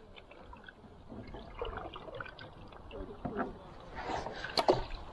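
Canoe paddling on a lake: a wooden paddle dipping and pulling through the water, with drips and small splashes, a couple of them sharper near the end.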